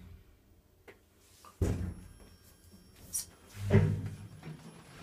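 Kone EcoDisc elevator car travelling down one floor, heard from inside the cab: a sudden thunk about a second and a half in, a short bright tick around three seconds, and a louder thump near four seconds.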